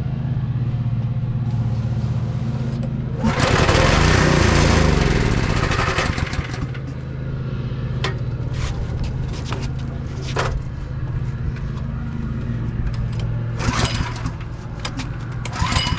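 Gas pressure washer's small engine running steadily. About three seconds in, a loud hiss of water spray rises for around three seconds while the engine's pitch sags under the load, and a few sharp clicks come later.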